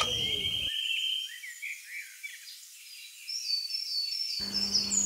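Outdoor ambience with a steady, high-pitched insect trill for about the first second, then faint short high chirps towards the end.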